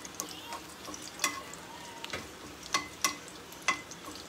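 Dried red chiles frying in hot oil in a stainless steel pan, a steady sizzle. Tongs click against the pan about five times as the chiles are turned.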